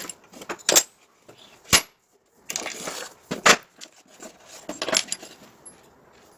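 A string of sharp clinks and knocks, as of small metal parts and tools being handled and set down, with a short stretch of rustling noise about two and a half seconds in.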